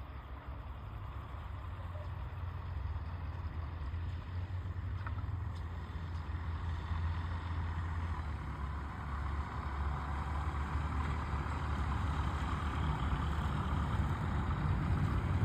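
Radio-controlled model airplane's motor running steadily, growing gradually louder, over a low rumble.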